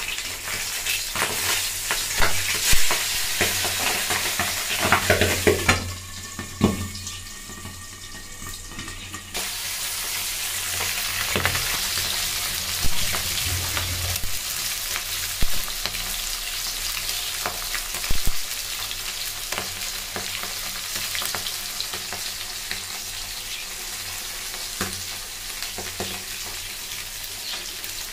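Tangra catfish frying in mustard oil in a metal kadai: a dense, steady sizzle with crackling from the oil, and a few sharp knocks of a metal spatula against the pan. The sizzle drops away for about three seconds some six seconds in, then comes back.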